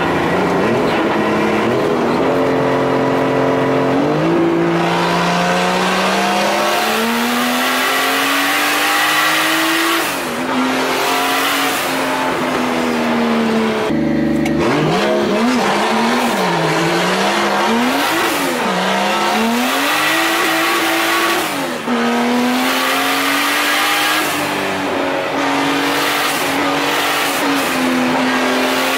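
Turbocharged 2JZ-GTE straight-six in a Nissan 240SX S14 under way, pulling up in pitch and dropping at gear changes a few times, then rising and falling with the throttle before holding a steady note. Its exhaust now ends short, ahead of the differential, which makes it sound a lot different.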